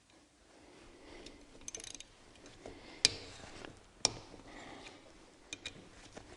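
Scattered ratchet clicks and small metallic clicks from hand tools working the bolts over an engine's camshaft, with two sharper clicks about a second apart in the middle.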